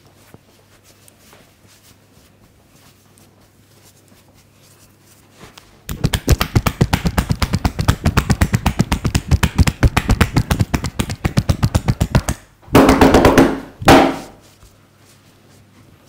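Rapid percussive massage strokes: hands striking the body in quick even rhythm, about eight or nine strikes a second, for some six seconds. Two louder, longer sounds follow near the end.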